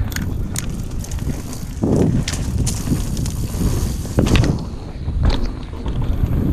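Full-suspension mountain bike (Yeti SB150) riding fast down a dirt trail: a steady rumble of wind on the microphone and tyres on the ground, broken by several sharp knocks and rattles from the bike over bumps.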